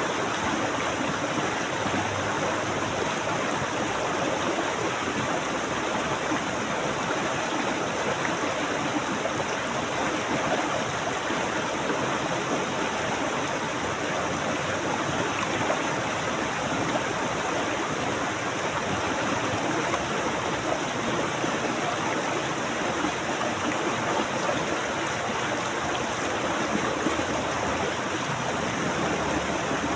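Water flowing in a stream, a steady rushing and babbling.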